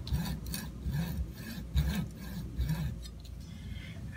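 Hand frame saw (coping-saw type) cutting through a rubber stopper clamped in a vise, in a steady run of rasping back-and-forth strokes that stop about three seconds in.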